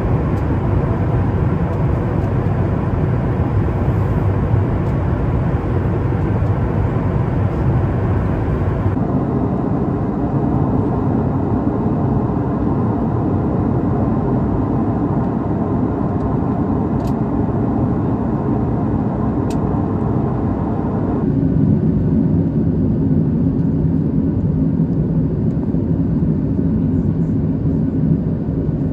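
Steady cabin noise of a Boeing 737 MAX 8 airliner on approach, heard from a window seat: a dull, even rush of engines and airflow. Its tone changes abruptly twice, about a third and two-thirds of the way in.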